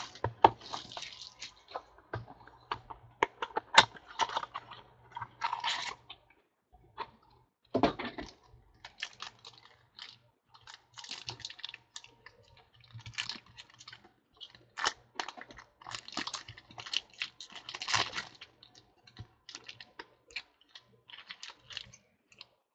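Trading cards and their packaging being handled: irregular rustling, crinkling and sharp plastic clicks as a pack of cards is opened and the cards are sorted.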